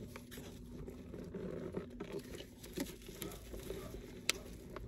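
Cardboard box and packing material being handled and opened: light rustling and crinkling with small scattered clicks, and one sharp click near the end.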